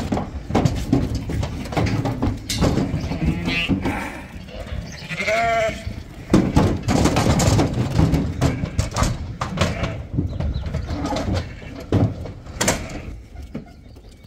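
Sheep and lambs bleating, with a couple of clear bleats around the middle, over a steady clatter of hooves and knocks as they are loaded into a livestock trailer.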